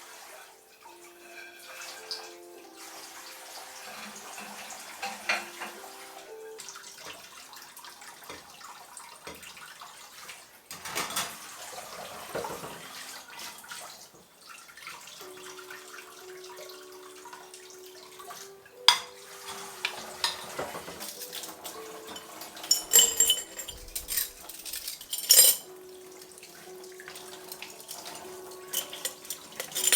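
Water running from a tap into a sink, with dishes and cutlery clinking now and then and a few sharp knocks in the second half. A soft melody of held notes plays underneath.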